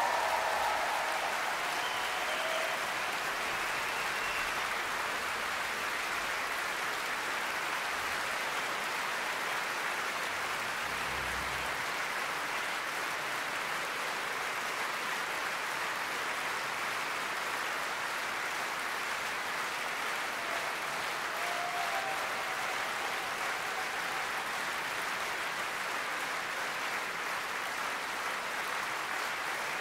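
Large concert-hall audience applauding in a steady, sustained ovation at the close of a performance.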